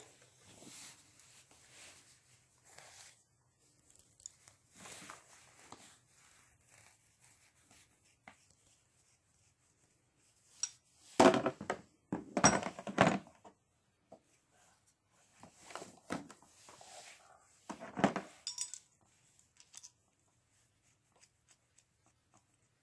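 Tools and their packaging being handled: scattered rustling and light clatter, with a cluster of louder clattering knocks about 11 to 13 seconds in and another knock near 18 seconds.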